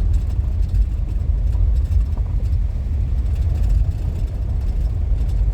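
Steady low rumble of road and engine noise inside a minivan's cabin while driving.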